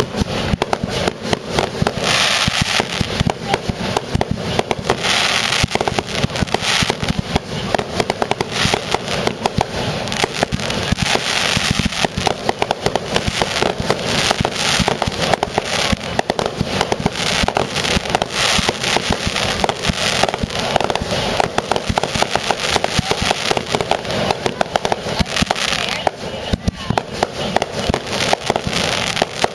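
A dense, continuous barrage of firework explosions, many bangs a second, mixed with bright crackling bursts.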